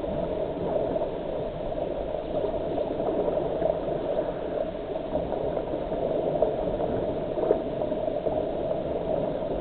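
Lake water gurgling steadily, a continuous noisy rush with no distinct strokes or splashes.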